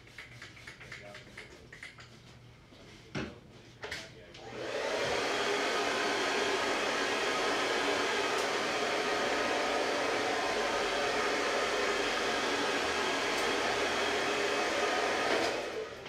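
Hand-held hair dryer blowing steadily for about eleven seconds, switched on about four seconds in and off near the end, after a couple of light knocks.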